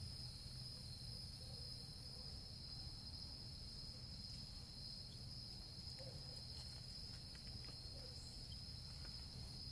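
Steady, high-pitched shrill of a night insect chorus, unbroken throughout, over a low steady rumble.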